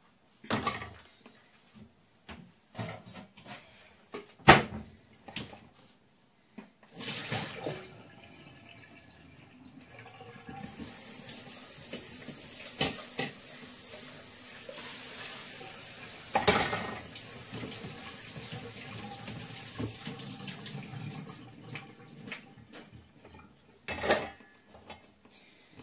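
Kitchen tap running into a stainless steel pot of cut raw potato fries as they are rinsed to wash off their surface starch. A few knocks and clanks of the pot come first; about ten seconds in the tap comes on and runs steadily for about fifteen seconds, with a few sharp clanks of the pot against the sink.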